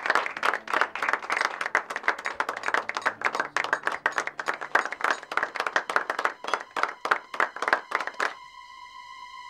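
A crowd applauding: dense clapping that thins out and stops about eight seconds in. A steady high tone then begins.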